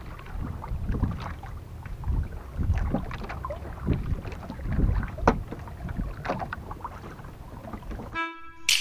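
Wind on the microphone and water slapping the hull of a small outrigger fishing boat, an uneven rumble with scattered knocks. Music starts near the end.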